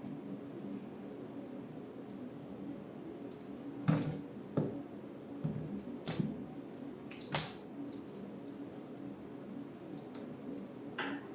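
Handling noise: several sharp clicks and knocks, the loudest about four and seven seconds in, over a steady low hum.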